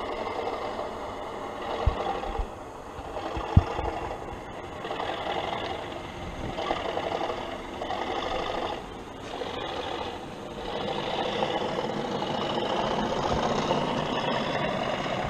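Sound-fitted OO gauge Accurascale Class 37 model locomotive, its DCC sound decoder playing a diesel engine sound through the model's small onboard speaker as it pulls its train away. The engine note swells and eases every second or two, with two sharp clicks in the first few seconds.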